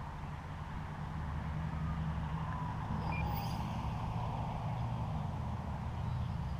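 Faint whine of an E-flite Slow Ultra Stick's electric motor as the RC plane flies past, its pitch falling about two to four seconds in, under a steady low rumble of wind on the microphone.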